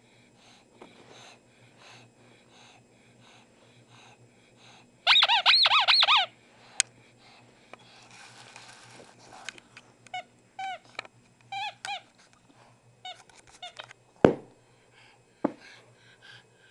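Rubber squeaky toy cow squeaking: one long, warbling squeal about five seconds in, then a run of short squeaks later on. A sharp thump comes near the end.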